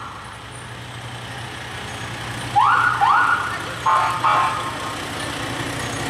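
Fire truck's siren given short bursts: two quick rising whoops, then two short steady blasts, over the truck's engine idling with a steady low hum.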